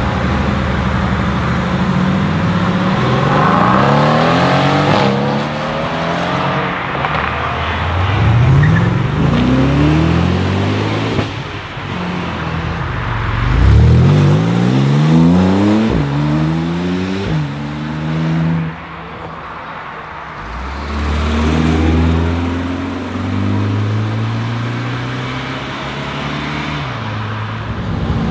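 Sports cars, among them a Mercedes-AMG GT and a Porsche 911 Turbo cabriolet, accelerating hard away one after another. Their engines rev up through the gears, the pitch rising and dropping back at each shift. The loudest pull comes about halfway through, then there is a brief lull before another car pulls off.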